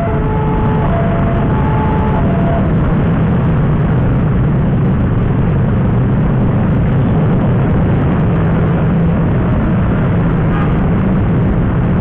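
Railway level-crossing warning alarm sounding in alternating steady tones, which stops about two and a half seconds in. Under it a loud, steady vehicle rumble carries on throughout.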